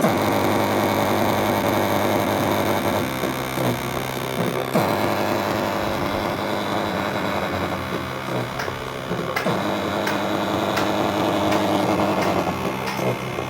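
Small bass loudspeaker under sound check putting out a steady, distorted droning hum with a rough hiss over it; the drone shifts slightly about five seconds in.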